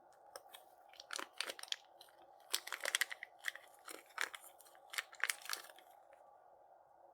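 Packaging crinkling and crackling in quick, irregular bursts as it is handled and opened, stopping about a second before the end, over a steady faint hum.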